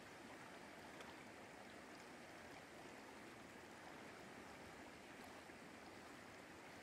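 Faint, steady rush of a shallow river current flowing over a riffle.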